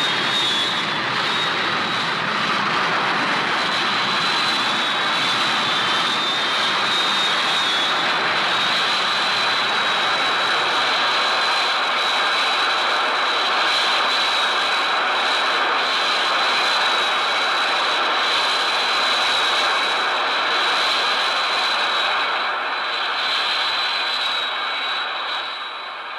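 Showa-era Mechagodzilla film sound effect: a steady jet-like rushing roar with a high, steady whine riding on top. It holds level for over twenty seconds, then fades out near the end.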